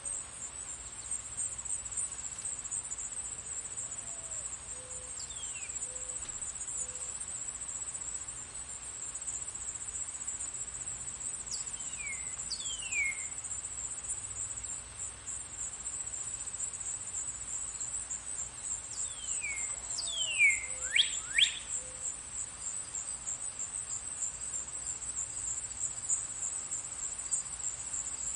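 Steady, high-pitched chorus of crickets, with birds calling now and then: short whistles that sweep downward, a few spaced through the middle and a louder cluster about three-quarters of the way through.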